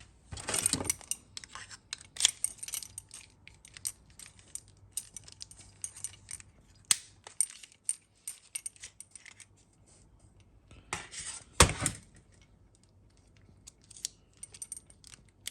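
Small metal clicks and clinks of a car door lock barrel and its key being handled and worked out of the door handle mechanism, with two louder rattling clatters, one about half a second in and one near the end.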